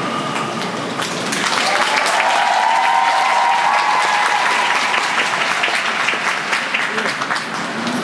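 Audience applauding, with a voice heard over the clapping a couple of seconds in.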